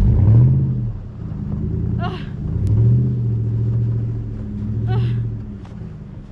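Chevy Silverado Z71 pickup's engine revving up and down several times as the truck, stuck in deep snow, tries to drive out onto MaxTrax traction boards under its wheels.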